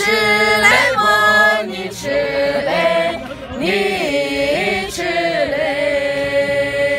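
A group of men and women singing a traditional folk song together, unaccompanied, with sustained notes and one long held note near the end.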